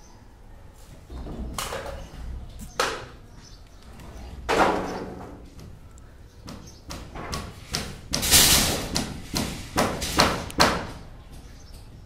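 Wooden shuttering props and planks being knocked loose and dropped onto a timber pile as formwork is stripped from a concrete slab: irregular wooden knocks and clattering thuds. A few separate knocks come first, then a denser, louder clatter past the middle.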